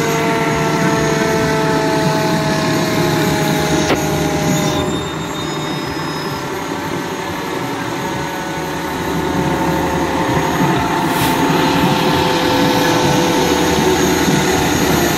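Heavy fire truck engine running steadily as the apparatus passes, with a few faint tones slowly falling in pitch. It drops a little in loudness for a few seconds mid-way.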